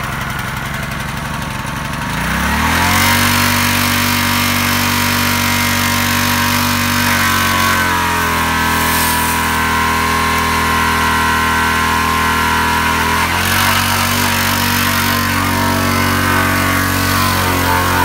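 Gas-engine pressure washer running, its small engine on a newly fitted carburetor: low and uneven for about two seconds after starting, then climbing to a steady higher speed. Spray from the wand hisses throughout, and the engine note shifts briefly twice as the spray trigger is worked.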